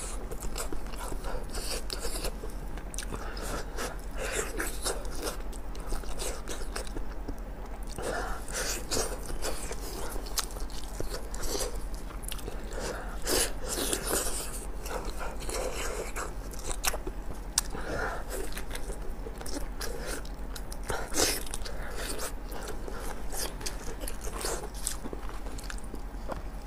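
Close-miked biting and chewing of a Chinese blood sausage in chili sauce: many short bites and chews at an irregular pace.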